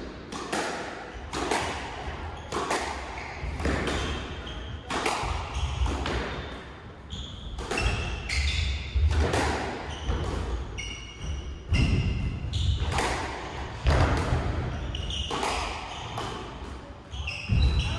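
A squash rally: the ball cracking off racket strings and walls in quick succession, roughly one hit every second, with trainers squeaking and feet thudding on the wooden court floor.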